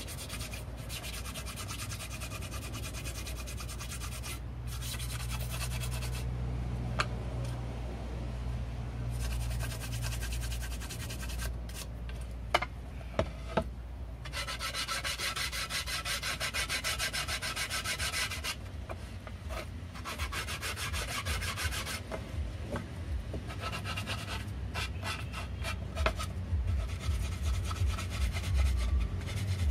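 Nail file rubbed quickly back and forth along the edge of a wooden board, sanding down small rough spots. The strokes come in spells of a few seconds with short pauses, and there are a few light taps around the middle.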